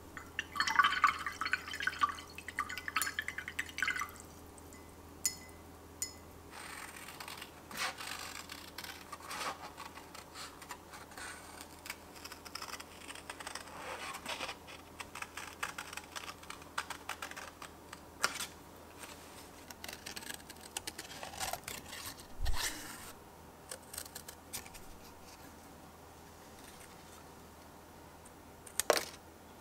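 A paintbrush swished and tapped in a glass jar of water for about four seconds, then scissors snipping paper in many irregular, crisp cuts around a painted cutout. There is one dull thump on the table about two-thirds of the way through.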